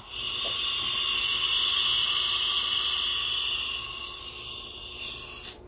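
Compressed air hissing out of a 3D-printed HPA Nerf blaster core after the shot, a steady rush that fades from about four seconds in as the nearly empty tank bleeds down. A sharp click comes near the end.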